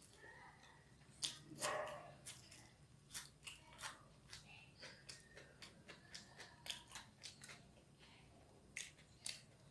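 Eating sounds: crisp crunches and chewing of a raw onion ring, with light clicks of a fork against the plate. The loudest crunches come a little over a second in.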